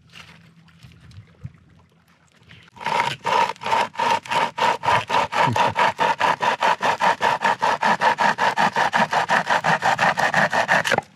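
A hand saw cutting through wood in fast, steady back-and-forth strokes, about six a second, starting about three seconds in and stopping just before the end.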